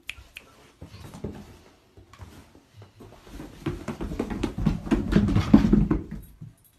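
A large dog's paws thudding on carpeted stairs as it goes down them. The run of dull thumps starts sparse, then comes quick and heavier over the second half, and stops shortly before the end.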